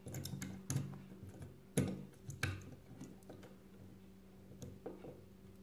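Small plastic toy figure being pushed and fitted into a plastic toy wheelchair: a run of sharp plastic clicks and taps, the loudest in the first two and a half seconds, then fainter taps.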